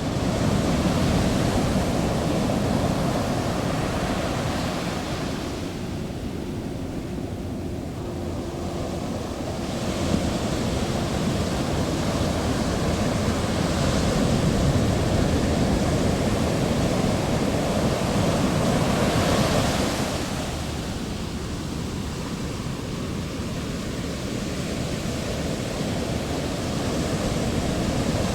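Heavy ocean waves breaking and washing in a continuous surging roar that swells and eases every several seconds.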